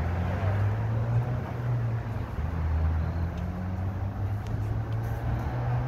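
A vehicle engine running with a low, steady hum that shifts slightly in pitch.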